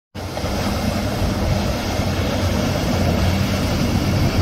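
Flybridge sportfishing boat's inboard engines running hard, a steady low drone under the hiss of spray off the hull.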